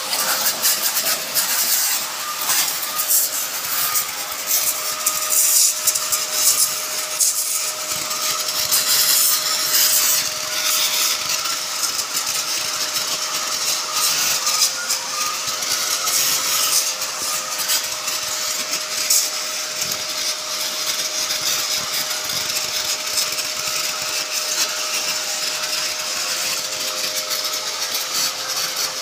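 A motor-driven pressure pump running with a steady hum under the loud, continuous hiss of its high-pressure water spray, washing down poultry cages.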